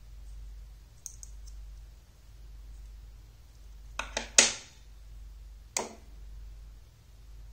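Magnetic rods and steel balls snapping together with sharp metallic clicks: a few faint ticks about a second in, three quick clicks around four seconds in (the last the loudest), and one more near six seconds. A steady low hum runs underneath.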